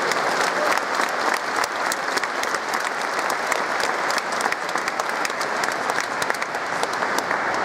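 A large audience applauding steadily, many hands clapping at once in a big stone hall.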